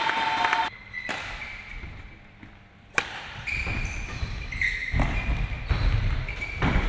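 Badminton rally: racket strokes on the shuttlecock and players' footfalls on the court, starting suddenly about three seconds in after a quieter lull between points.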